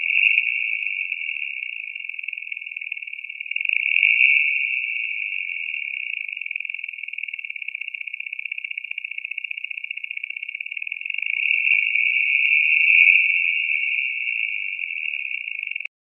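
Stock knock-sensor recording of a Mazda RX-8's Renesis rotary engine, band-pass filtered to 2200–2800 Hz and amplified, leaving a narrow, high, fast-fluttering hiss that swells louder near the start, about four seconds in, and around twelve to thirteen seconds, then cuts off just before the end. The owner believes the swells, a chirping, belt-squeal-like sound, are engine knock, since the noise went away when he reduced timing.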